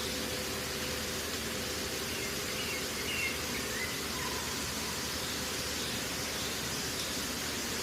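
Steady hiss of background noise, with a few faint, short high chirps about three seconds in.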